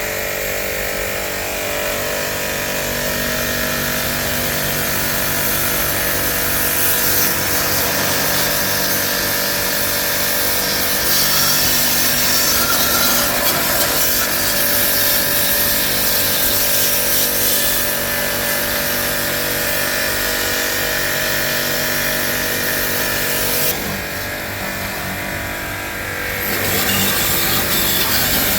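A motor-driven machine running steadily, with a steady hum under a loud hiss. The hiss drops away for a few seconds about 24 seconds in, then returns.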